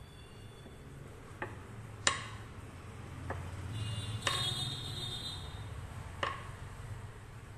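A wooden rolling pin tapping and clicking against a countertop while a small ball of rice-flour dough is rolled out. There are about five sharp, irregularly spaced ticks over a low steady hum.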